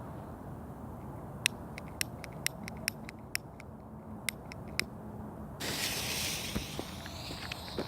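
Firecrackers going off as about ten sharp, scattered pops. About two-thirds of the way through, a loud, steady hiss of burning pyrotechnics starts.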